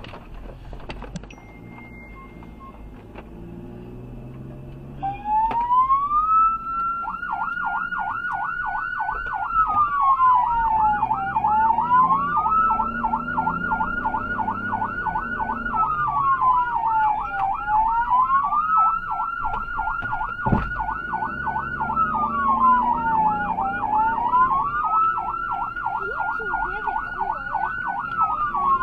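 An electronic emergency-vehicle siren comes on about five seconds in. It rises into a slow wail that sweeps up and down every six seconds or so, with a fast yelp laid over it, above low engine and road noise. There is a single sharp knock near the twenty-second mark.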